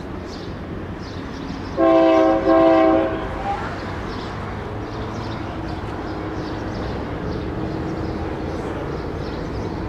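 Union Pacific diesel freight locomotive's multi-note air horn sounding two short blasts about two seconds in, over the low steady rumble of the approaching locomotives.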